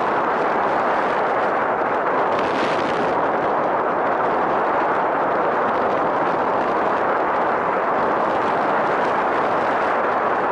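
Airflow rushing over the microphone of a camera mounted on a flying RC model plane: loud, steady wind noise with no clear engine tone, swelling hissier for a moment about two and a half seconds in.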